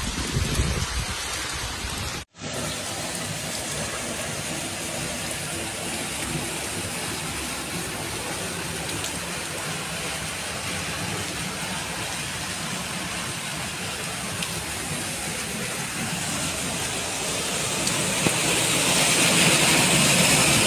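Heavy rain falling, then after a short break a steady rush of rain and running floodwater, growing louder near the end.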